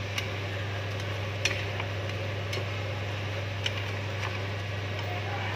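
Pork ribs simmering in sauce in a frying pan, sizzling with about five sharp, scattered pops over a steady low hum.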